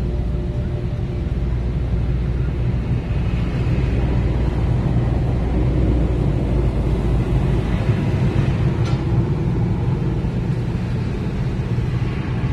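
Automatic car wash machinery running, heard from inside the car: a steady low rumble, with a hiss that swells in the middle and a brief sharp tick about nine seconds in.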